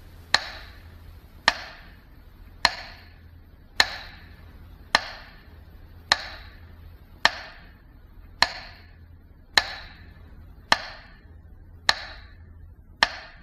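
Slow, even ticks: twelve strokes a little over a second apart, each a sharp click with a short ringing tail. The last one is cut off.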